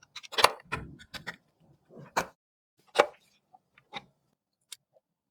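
Irregular clicks and knocks of hard computer parts being handled and fitted together during a PC build, with three louder clicks about half a second, two seconds and three seconds in, then a few lighter ticks.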